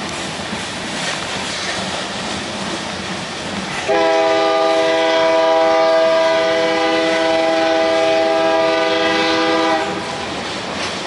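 Freight train of covered hopper cars rolling past on the rails. About four seconds in, a locomotive air horn sounds a steady chord of several notes, held for about six seconds, then stops.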